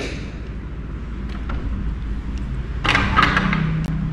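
A motor vehicle's engine running steadily, with a sharp click at the start and a louder rush of noise with a rising tone about three seconds in.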